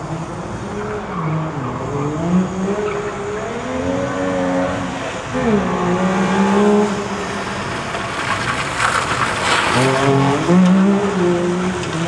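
Car engine revving up and dropping back again and again as the car is driven hard round a cone course, with a burst of tyre skid noise about two-thirds of the way through.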